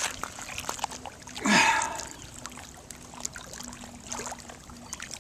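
Water sloshing and trickling as a carp is released back into shallow water, with one louder splash about a second and a half in.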